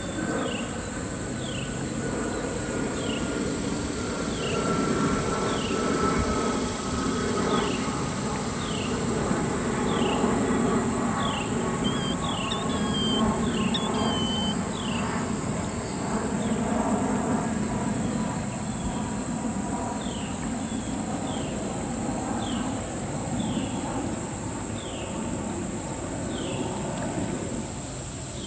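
Shallow river water running over rocks, with insects chirping: a steady high thin drone and short falling chirps about once a second. A few brief bird chirps come about halfway through.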